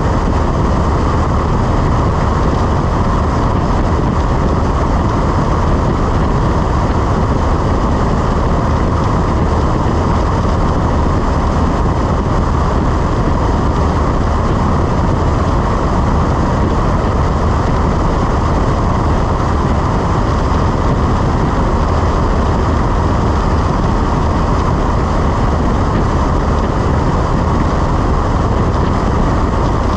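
Cessna 172 in flight: the steady, unbroken drone of its piston engine and propeller with the rush of air, holding level throughout.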